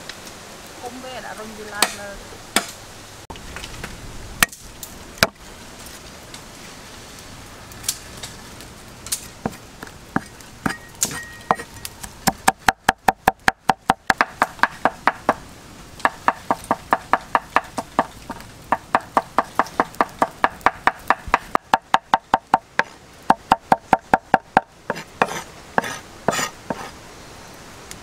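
A knife chopping garlic on a wooden chopping board: a few separate knocks at first, then two long runs of rapid chops, about five a second, with a short pause between them.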